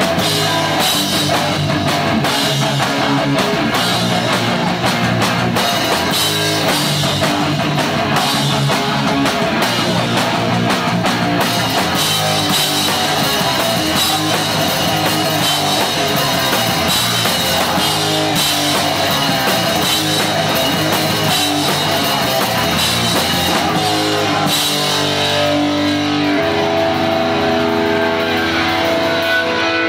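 Hardcore punk band playing live and loud in a small club, with distorted electric guitars and a pounding drum kit. Near the end the cymbals drop away and held guitar chords ring on.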